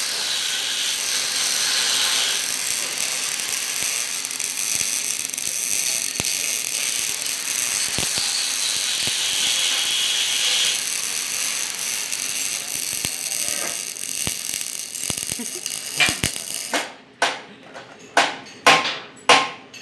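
Electric arc welding crackling and sizzling steadily on steel, stopping abruptly about 17 seconds in. Then come about five sharp metallic knocks as the welded part is handled.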